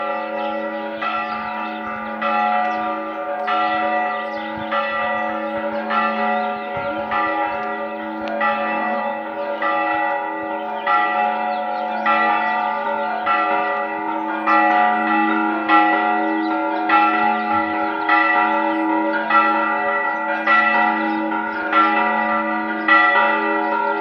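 Church bells rung in a steady, even pattern, about one strike every second or so, each tone ringing on under the next strike, to announce the start of a village fiesta.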